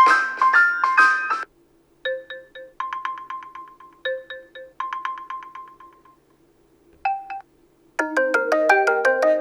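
OnePlus Nord N10 5G ringtones played one after another. One melody ends, then a tone of three notes and a fast run of one repeated beep sounds twice, then a brief two-note chime. A new, busier melody starts about eight seconds in.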